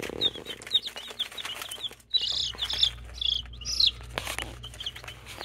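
Two-day-old Speckled Sussex and Ameraucana chicks peeping: a run of short, falling chirps, several a second, with a few louder, shriller peeps in the middle.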